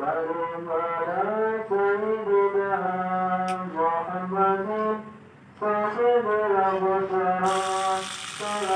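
Background music: a melodic line stepping up and down over a steady low drone, with a brief pause about five seconds in.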